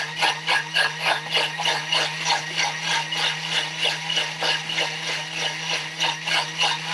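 A steady machine hum with a regular rattling beat, about four a second.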